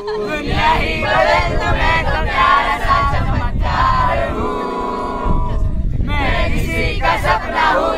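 A group of young people shouting and chanting together, with many voices overlapping and a long drawn-out group shout in the middle.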